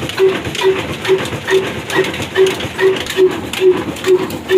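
Old heavy 45 HP black diesel oil engine running at slow speed, its exhaust beating evenly about two and a half times a second.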